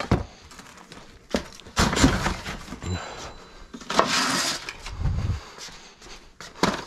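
Cardboard boxes and a plastic crate of CDs and DVD cases being handled: a string of knocks, scrapes and rustles, with a duller thump about five seconds in.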